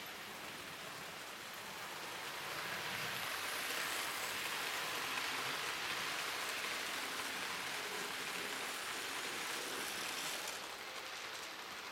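HO-scale Märklin model train rolling past on the layout's track: a steady hiss of wheels on rails that swells about two and a half seconds in and fades near the end as the train goes by.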